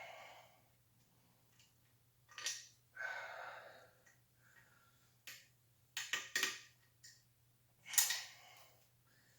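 Workshop handling sounds: about six short knocks, clicks and scrapes of parts being worked on, spaced a second or two apart, over a steady low hum.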